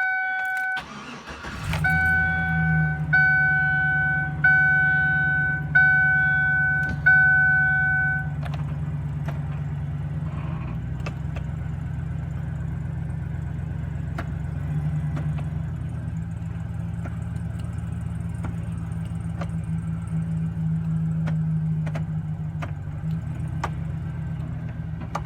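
Pickup truck engine cranking and starting about a second or two in, then idling steadily. A dashboard warning chime dings about six times, a little over a second apart, and stops about eight seconds in.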